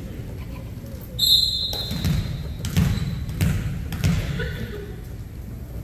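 A referee's whistle blast of about half a second, a little over a second in, then a volleyball thumping four times in quick succession, about one every three quarters of a second.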